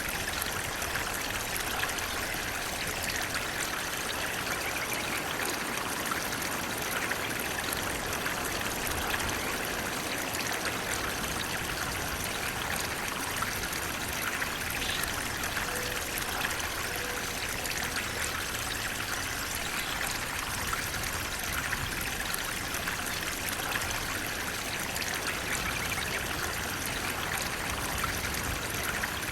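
Natural flowing water running steadily, an even rush with fine trickling and splashing detail throughout.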